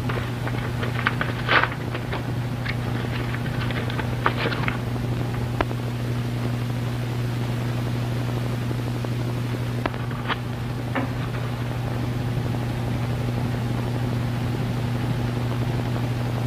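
Background hiss and steady low hum of an early-1930s optical film soundtrack, with a scatter of crackles and clicks in the first few seconds and two more about ten seconds in.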